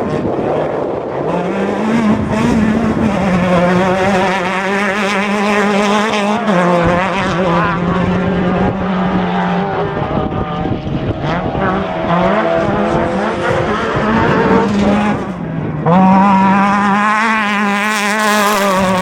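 Class 10 off-road race car engine running hard at high revs, holding a steady pitch for seconds at a time. The pitch sags and climbs back a few times as the throttle is eased and reapplied, and it gets louder near the end.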